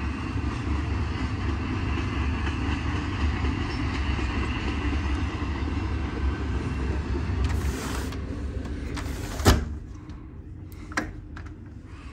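Norfolk Southern eastbound intermodal freight train running steadily past on the upgrade, heard through an open window. About nine and a half seconds in there is a sharp knock, after which the train sound is much fainter, with one more small click shortly after.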